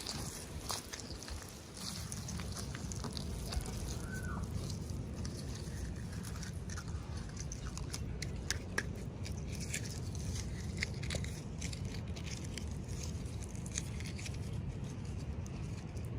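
Packaging and small plastic parts being handled: scattered light crinkles and clicks over a steady low hum.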